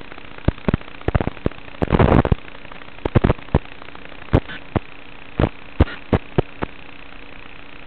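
Steady static hiss from an FPV goggle DVR's low-quality audio track, broken by irregular sharp pops and crackles, with a denser crackle about two seconds in.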